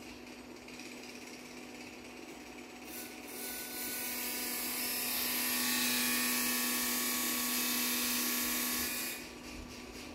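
Experimental live noise from amplified objects and electronics: a steady low hum, with a loud, harsh hiss that swells in about three seconds in and cuts off suddenly about nine seconds in.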